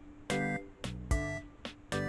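Background music: a tune of short pitched notes with sharp starts, a few notes a second.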